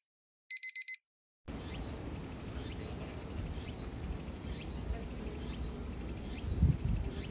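Four quick electronic beeps in a row, like an alarm clock, about half a second in. After a brief silence comes a steady outdoor background rumble with faint, evenly spaced high chirps.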